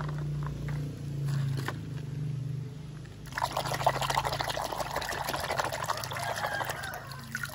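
A hand swishes and scrubs a toy car under foamy water in a basin, splashing and sloshing steadily from about three seconds in to near the end. Before that, a couple of light knocks of a plastic toy set into a metal bowl.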